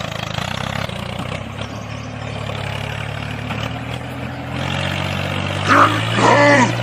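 Engine running steadily with a low, even note, which steps up a little and gets louder about two-thirds of the way through. Near the end a short cry with a sliding pitch rises over it.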